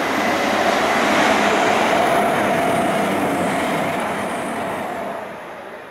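Peppercorn A1 Pacific steam locomotive 60163 Tornado approaching under steam, with a steady rush of exhaust and steam that fades over the last second.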